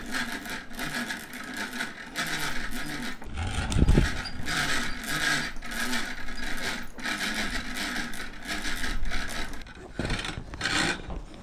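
Rope being hauled hand over hand through a pulley to hoist a load, a rasping rub in repeated pulls, with a heavy thump about four seconds in.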